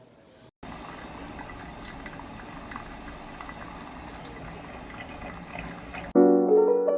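Smeg DCF02 drip coffee maker brewing: a steady liquid noise with small scattered ticks. About six seconds in, piano music cuts in.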